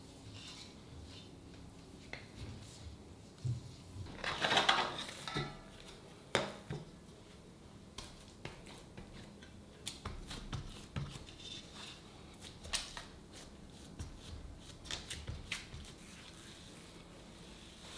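Kitchen handling sounds: scattered light clicks and knocks of utensils against dishes, with a longer, louder stretch of handling noise about four seconds in.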